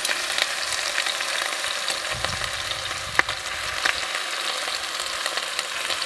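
A chuck roast sizzling as it sears in hot ghee in an Instant Pot on the sauté setting: a steady crackling hiss with small pops, and one sharp click about three seconds in.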